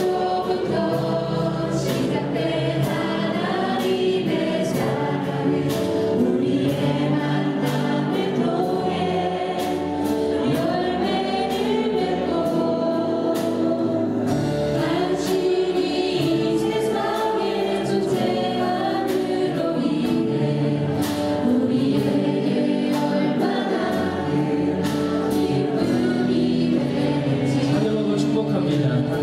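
Group singing a Christian worship song in chorus with instrumental accompaniment and a steady beat.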